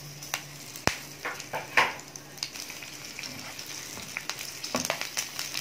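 Slit green chillies frying in hot oil in a pan: a steady sizzle with scattered pops and crackles, one sharp pop about a second in, while a spatula stirs them.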